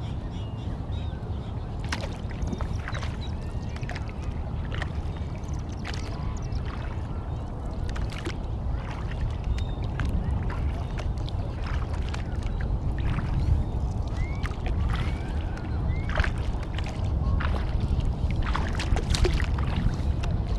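Kayak paddling on calm water: the paddle blades dipping and splashing, with scattered irregular drips and splashes over a steady low rumble.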